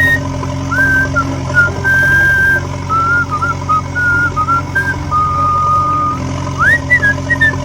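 A whistled melody of short notes and a few held notes, with quick upward slides, over a steady low mechanical hum.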